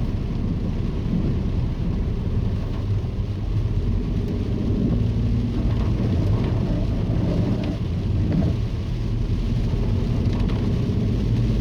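Inside the cabin of an Audi A2 1.4 TDI driving along a flooded road in the rain: a steady low rumble of engine and tyres, with water swishing and spraying under the car.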